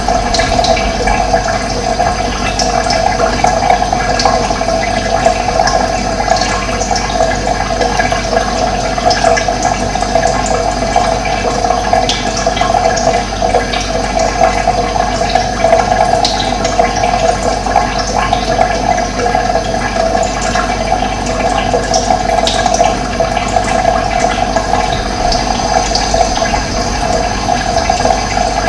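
Steady rush of running water, unbroken throughout, with faint brief bird chirps here and there above it.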